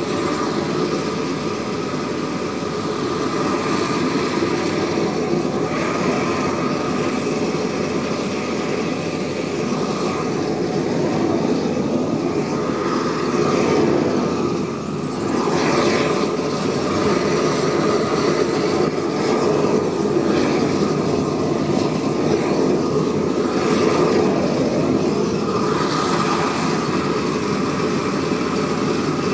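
Propane weed-burner torch burning steadily, its flame a loud, even rush, with a short dip about halfway through.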